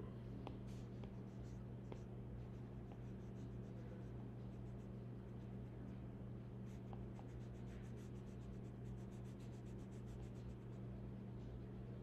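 Stylus tip scratching and tapping on an iPad's glass screen while shading, with scattered light strokes and a quick, rapidly repeating run of short strokes from about seven seconds in, over a faint steady low hum.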